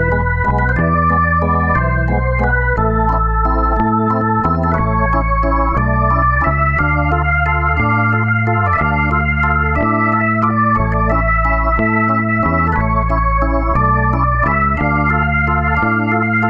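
Background instrumental music on an organ-like keyboard: sustained chords over a bass line that steps to a new note about once a second, at a steady level.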